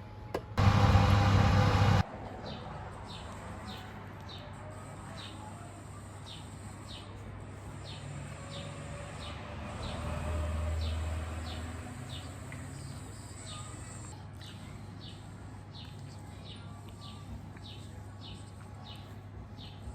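Small birds chirping, many short repeated calls, over a low steady hum. A loud burst of noise lasting about a second and a half comes just after the start.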